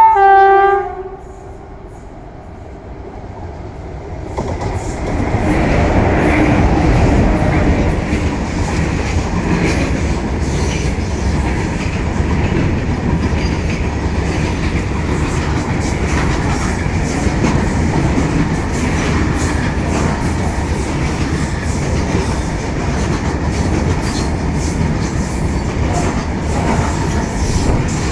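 A WAG-5 electric locomotive's horn gives one short blast, dropping slightly in pitch partway. After a few seconds the rumble builds as the freight train arrives, then a rake of BCNAHSM1 covered wagons runs past at speed with a loud steady rumble and the wheels clicking over the rail joints.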